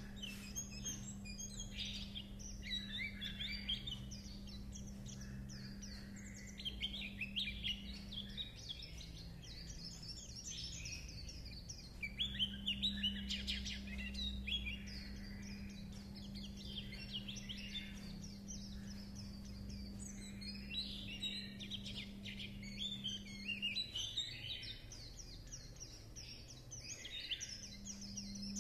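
White-eye (khuyên) singing its 'líu chuyện' song, a long run of rapid, high twittering and chattering notes with hardly a pause. A steady low hum lies beneath it and drops out twice.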